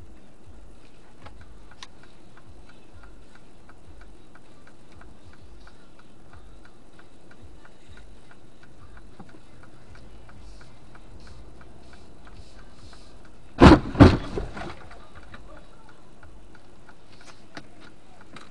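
A car's turn-signal indicator ticking steadily inside the cabin. About two-thirds of the way through, two loud bangs come in quick succession.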